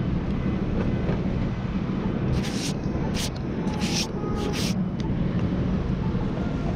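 Steady low hum of street traffic. In the middle of it come five or so short, scratchy rubbing bursts: rain being wiped off the action camera's lens.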